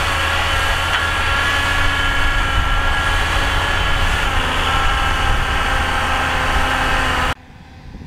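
John Deere tractor's diesel engine running steadily under load as it pulls a disc harrow, a deep rumble with a steady whine over it. About seven seconds in it drops suddenly to a much quieter rustling sound.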